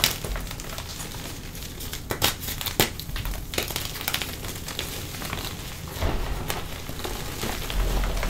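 Blocks of pasted gym chalk crushed and crumbled by hand: several sharp cracks as pieces snap, the loudest right at the start and a couple more around two to three seconds in, over a dry crackling crumble of chalk grit and powder.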